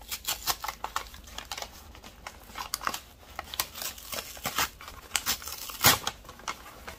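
Brown kraft paper crinkling and rustling in irregular crackles as a paper-wrapped plant is unfolded by hand, with one louder crackle about six seconds in.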